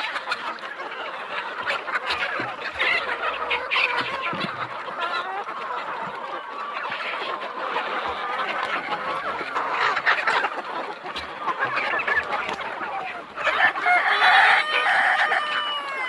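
A large flock of local chickens clucking and calling over one another. A louder, drawn-out call near the end is a rooster crowing.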